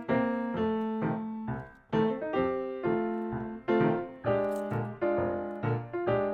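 Background piano music: chords struck one or two a second, each fading before the next.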